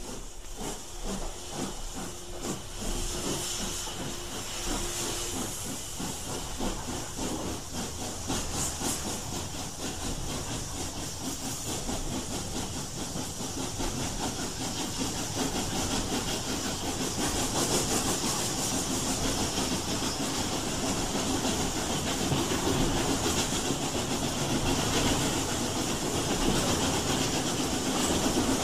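Steam locomotive hissing steam, with a slow rhythmic beat over the first several seconds; the hiss grows steadily louder toward the end.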